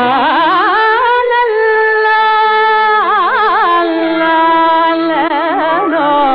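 Early-1950s Tamil film song in Carnatic style: a single melody line of long held notes broken by fast wavering ornaments (gamakas), most marked about three seconds in and again near the end.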